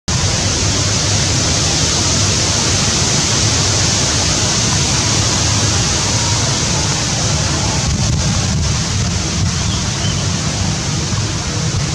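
Steady rushing wind noise on the microphone, even throughout with no distinct events.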